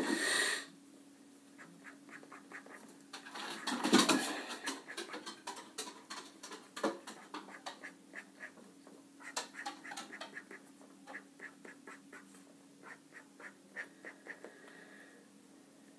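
Felt-tip marker pen scratching across paper on a clipboard in many short, quick strokes. A dog clattering about makes louder bursts of noise right at the start and, loudest, about four seconds in.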